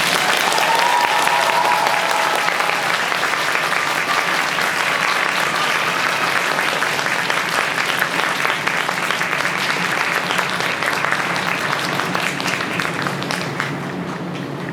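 Arena crowd applauding at the end of a figure skating program. The applause starts suddenly, with a few cheers in the first seconds, and slowly thins out toward the end.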